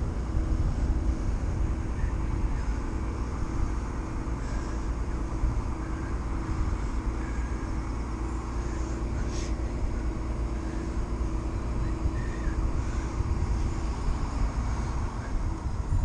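Telescopic crane running while its basket is moved, a steady low rumble mixed with wind on the microphone. A faint, evenly pulsing tone sounds through most of it and stops near the end.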